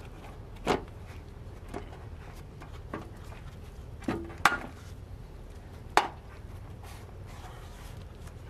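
Plastic clicks and knocks of a fog light and its bezel being pushed and snapped into a Toyota Tundra's chrome bumper corner: about six separate sharp clicks, the loudest two about halfway through and at about six seconds.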